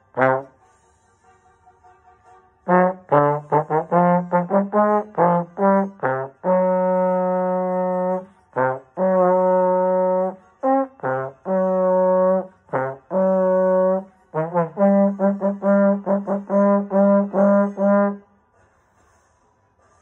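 Trombone played solo: one short note, a pause of about two seconds, then a run of quick repeated tongued notes, several long held notes, and another fast run of repeated notes that stops a couple of seconds before the end.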